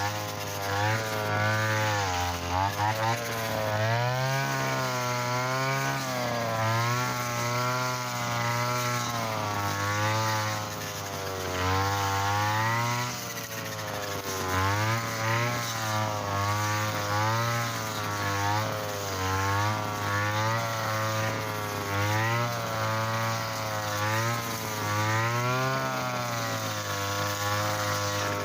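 Mitsuyama brushcutter with 2.4 mm trimmer line running hard through thick grass. Its engine note keeps dropping and rising every second or two as the head bogs into the tough stems and frees up again.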